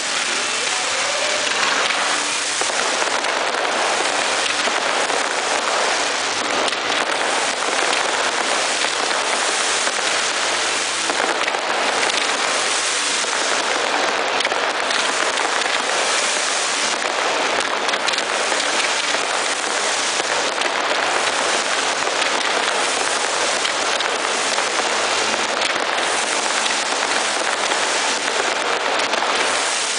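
Ground-level pyrotechnic fountains (gerbs) spraying sparks with a steady, dense hissing crackle.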